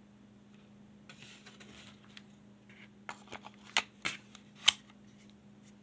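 Ruger P95 pistol parts being handled during reassembly: a faint rustle, then several sharp clicks between about three and five seconds in as the slide and frame are worked together, the loudest near the end.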